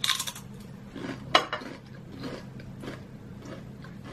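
Doritos corn chips crunching as they are bitten and chewed: a burst of crisp crunches at the start, the loudest crunch about a second and a half in, then fainter crunches while chewing.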